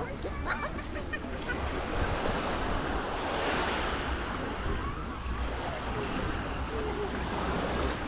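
Sea surf washing onto a sandy beach, rising and falling in slow washes, with wind rumbling low on the microphone.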